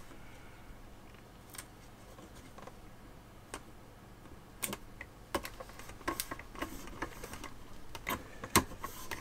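Small irregular clicks and taps of fingertips and nails on a computer motherboard as a label sticker is pressed and smoothed on. They are sparse at first and come thick and fast from about halfway, with a sharper knock near the end as the board is handled.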